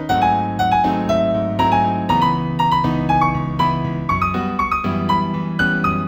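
Piano playing a gentle new-age piece in B major: a melody of single notes, several a second, over sustained bass chords that change about every two seconds.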